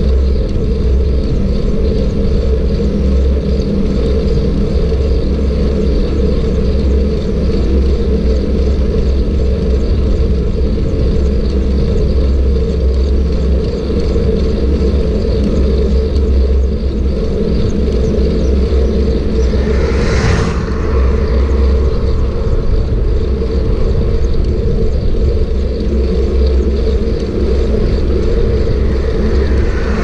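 Steady wind rush and road rumble on a bike-mounted camera riding along a paved road. A vehicle swishes past about two-thirds of the way through, and another comes by near the end.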